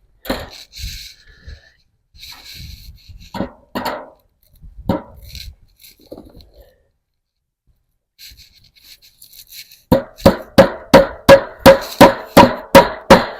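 A hammer driving a fence staple: a few scattered knocks, then near the end a rapid run of about a dozen loud, ringing strikes, roughly three a second.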